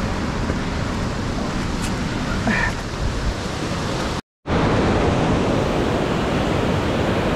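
Steady rush of creek water tumbling over boulders and a small waterfall. The sound cuts out for a split second about four seconds in, then the rush of falling water resumes.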